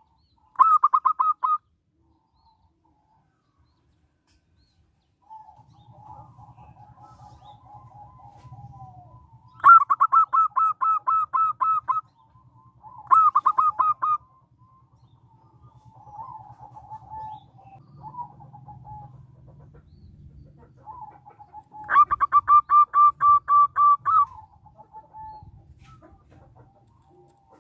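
Zebra dove (perkutut) calling: four loud bursts of rapid, staccato cooing notes, each lasting about one to two seconds, with softer, lower cooing in the gaps between them.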